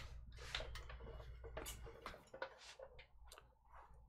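Faint, irregular clicks and rustles of trading cards and plastic card holders being handled.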